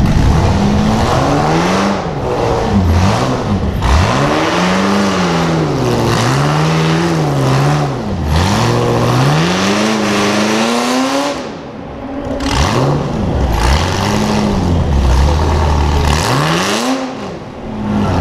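Off-road competition truck's engine revving hard and dropping back again and again, its pitch rising and falling every second or two. The throttle eases off briefly around twelve seconds in and again near the end.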